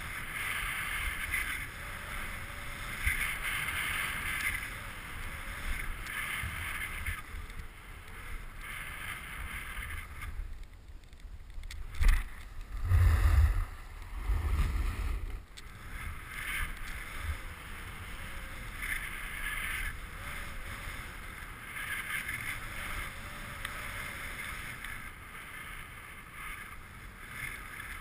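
Hiss of a downhill run through powder snow, swelling every couple of seconds with each turn. Wind buffets the camera's microphone in loud low rumbles about halfway through.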